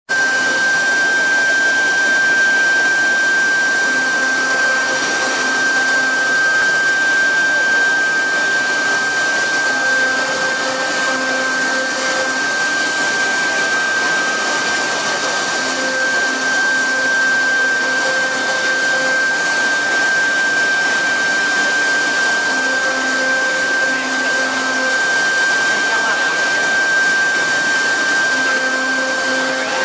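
CC-M1325AS2 two-head CNC router running: a steady high-pitched whine over a steady rushing noise, with a lower hum that comes and goes every few seconds.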